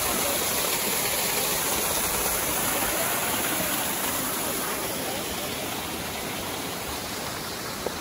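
Small waterfall pouring between granite boulders into a mountain creek: a steady rushing splash of water, easing slightly as it goes.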